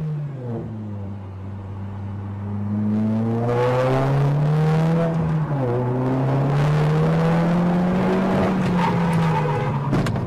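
Car engine accelerating, heard from inside the cabin: its note climbs steadily, drops at a gear change about five and a half seconds in, then climbs again over road noise.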